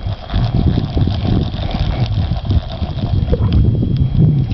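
Wind buffeting the microphone on an open boat, an uneven, gusty low rumble, with a faint steady hum underneath.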